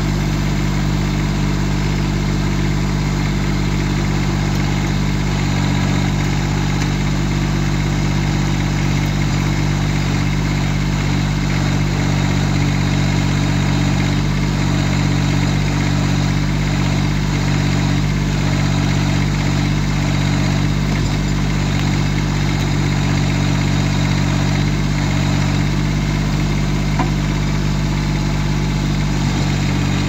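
Massey Ferguson GC1710's small three-cylinder diesel engine running steadily while it drives the backhoe hydraulics digging out a tree stump.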